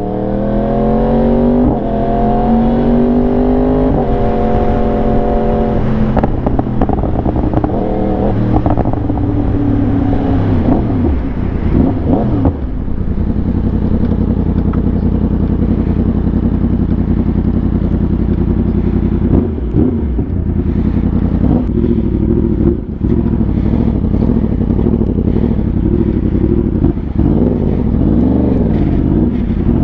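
Yamaha R1 sportbike's inline-four engine under way: pitch climbing as it accelerates through the gears over the first few seconds, falling as it slows, then running steadily at cruising speed with small rises and dips.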